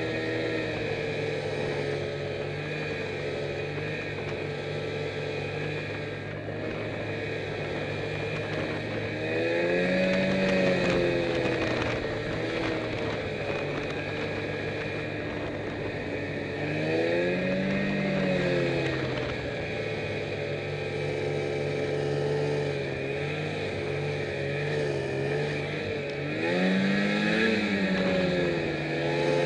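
Snowmobile engine running while being ridden, heard from the rider's helmet; it holds a steady note and revs up and back down three times, once each at about ten, eighteen and twenty-seven seconds in.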